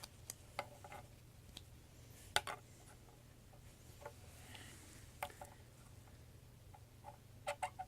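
Faint, scattered clicks and taps of small plastic action-figure parts being handled: a few single ticks, a sharper click about two and a half seconds in, and a quick cluster near the end.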